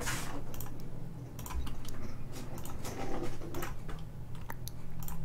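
Scattered, irregular clicking at a computer over a low steady hum, from placing points for a polygon mask.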